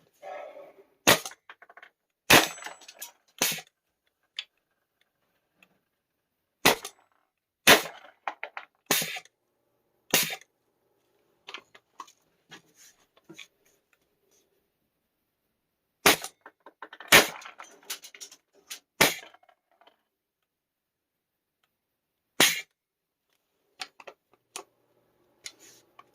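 Airsoft Innovations FLAK 10 gas airsoft gun firing about eleven sharp shots, in groups of three or four about a second apart, with lighter clicks and rattles between the shots.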